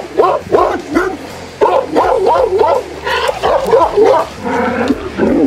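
A Presa Canario barking in a fast, continuous run, about two to three barks a second. It is barking aggressively at a person feinting at it to provoke it.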